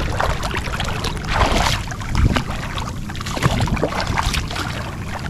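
River water splashing and sloshing as a person kicks and thrashes in the shallows in boots, a run of separate splashes over a steady wash of moving water.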